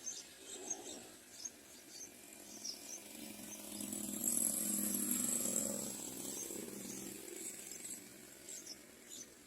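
Yellow-vented bulbul nestlings begging: short, high, thin squeaks, running into a louder continuous squeaking spell midway, over a low rustling.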